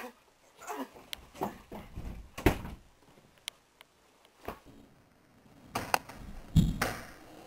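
Scattered knocks, bumps and thumps of two people scuffling and of the handheld camera being jostled, with the loudest thuds about two and a half seconds in and near the end.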